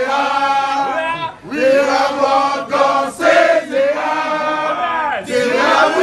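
A group of men chanting and singing together in celebration, in held phrases of one to two seconds with short breaks between them.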